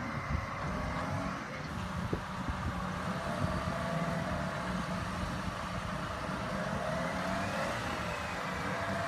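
Engine of a large-tyred articulated pole carrier running steadily as it tows a long pole, with a faint whine that wavers slightly in pitch.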